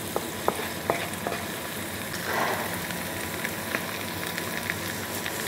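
Minced garlic and black beans sizzling in oil in a wok, stirred with a wooden spatula, with scattered sharp clicks and a brief louder scrape a couple of seconds in. The garlic is being fried until it just turns lightly brown.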